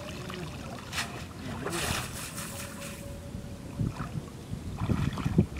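Water splashing and streaming off a cast net as it is lifted and gathered out of shallow floodwater, loudest for a second or so near the middle. Wind buffets the microphone near the end.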